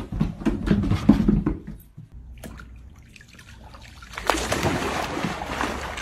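A run of knocks and thumps, then, about four seconds in, a dog splashing into a swimming pool and paddling, with water sloshing and splashing.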